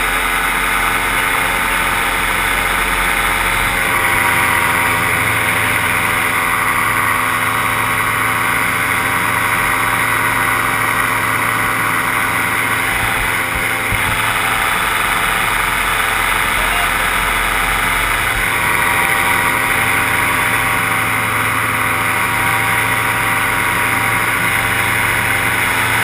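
Paramotor engine and propeller running steadily in flight, its note shifting a few times as the throttle is eased and opened.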